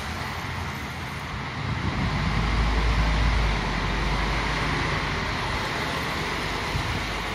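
Articulated city bus's engine running at the stop, with a deeper low rumble swelling about two seconds in and easing off a second and a half later, over steady traffic noise.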